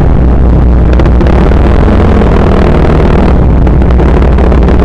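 Yamaha Mio Sporty scooter's single-cylinder engine, fitted with a 28 mm Keihin carburettor, running steadily under way. It is mixed with heavy wind noise on the microphone.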